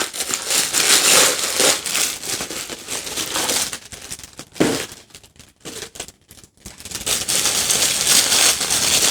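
Action-figure packaging being handled and unwrapped: irregular crinkling and rustling with small clicks, a sharp knock about halfway, a quieter spell, then more crinkling near the end.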